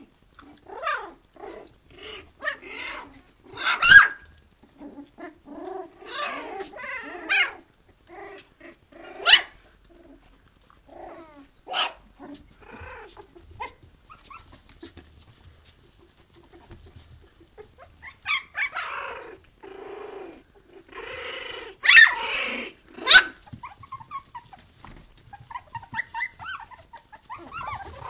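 A litter of three-week-old Tibetan terrier puppies yipping as they tussle: many short, high calls, with several loud, sharp yelps among them.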